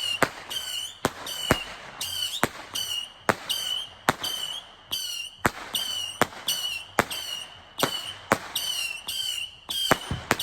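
A steady barrage of fireworks: a sharp bang about every half second, with a high warbling whistle between the bangs.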